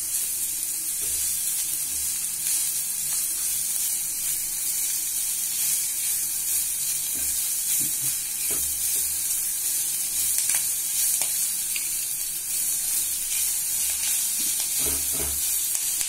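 Chopped onions and curry leaves sizzling in hot oil in a clay pot while being stirred, with a silicone spatula scraping and knocking against the pot now and then.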